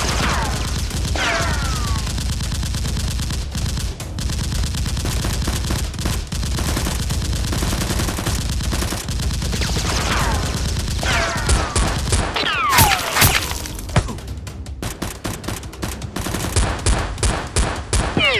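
Rapid, continuous automatic-gunfire sound effects, dubbed over blaster firing. Falling whistling streaks come in about a second in and again around ten to thirteen seconds in.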